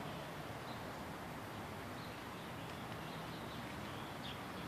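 Steady outdoor background noise with a few faint, short, high chirps scattered through it.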